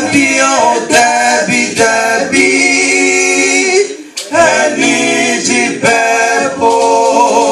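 A mixed vocal group of men and women singing a Twi gospel song a cappella in close harmony. The chords are held long, with a short break about four seconds in before the singing resumes.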